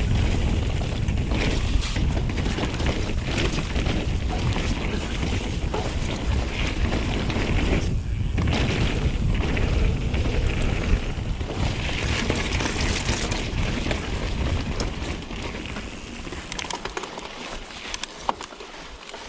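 Wind buffeting an action-camera microphone and tyres rumbling over the trail as a mountain bike is ridden at speed. The rush eases off over the last few seconds, leaving scattered clicks and rattles.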